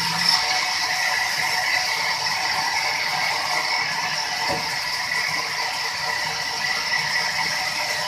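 Large sawmill band saw running steadily, a constant rattling mechanical noise with a steady high whine over it.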